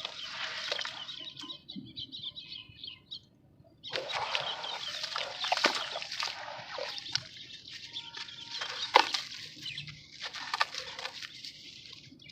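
Dry sand-cement shapes crumbling, a gritty crackle of many sharp crunches with a brief pause about three seconds in.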